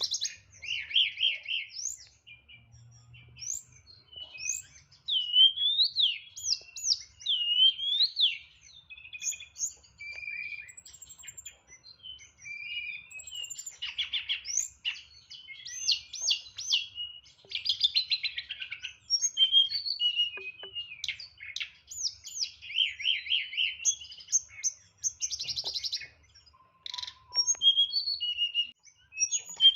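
Tledekan songbird singing a long, varied song: rapid chirps and trills mixed with whistled notes that swoop up and down, phrases following one another with short pauses. The song carries the mimicked phrases (isian) that keepers prize in this bird.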